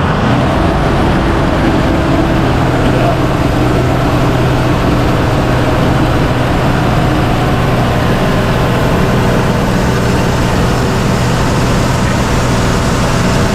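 Engine of an amphibious Duck tour vehicle running steadily with a constant low drone.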